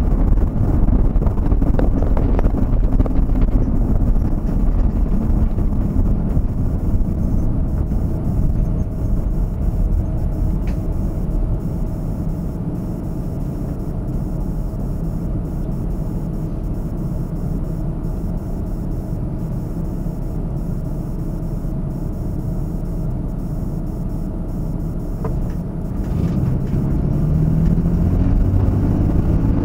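A vehicle driving on the road: a steady low engine and tyre rumble. Near the end a low tone rises in pitch as the engine picks up.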